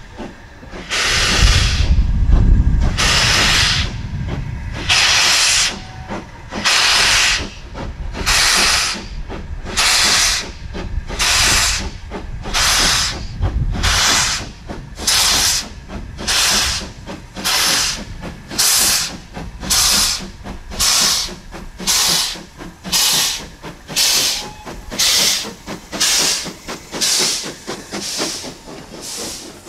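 Steam locomotive pulling away with a passenger train: sharp exhaust chuffs that quicken from about one every two seconds to about one a second as it gathers speed, with a heavy low rumble a couple of seconds in.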